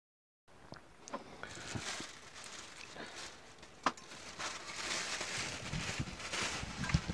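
Clear plastic bag rustling and crinkling as a vacuum pump is pulled out of it, with scattered clicks and a few low knocks and thumps near the end as the pump is handled on a wooden workbench.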